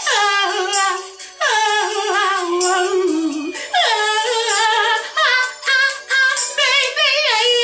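A woman singing wordless ad-lib runs with vibrato, each run sliding down in pitch, repeated several times.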